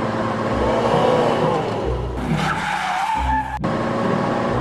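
Added car tyre-screech sound effect, gliding up and down in pitch, over background music with a steady bass beat.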